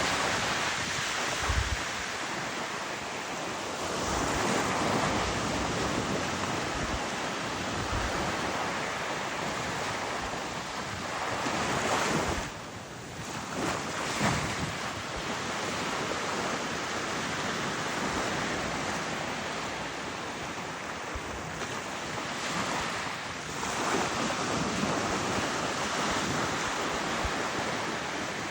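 Surf: waves washing in and falling back, swelling and fading every few seconds, with wind buffeting the microphone.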